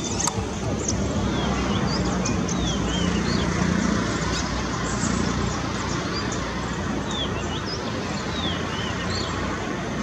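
Steady low background rumble with a faint hum, and scattered short, high bird chirps, several of them falling quickly in pitch. There is a single sharp click about a third of a second in.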